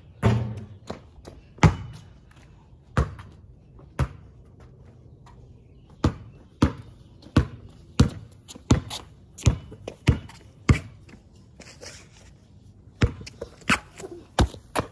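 Basketball bouncing on pavement: a few scattered bounces, then steady dribbling at about one and a half bounces a second from around six seconds in. After a short pause, a few more bounces come near the end.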